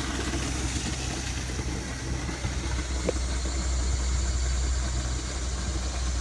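A steady low hum like an idling motor, over a light hiss, with a small click about three seconds in.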